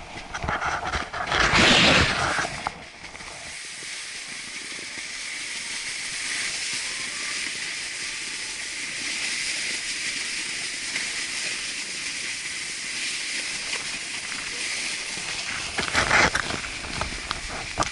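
Snowboard sliding down a groomed snow slope: a steady hiss of the board running over the snow, with loud rustling of movement near the camera in the first few seconds and louder, rougher scraping near the end.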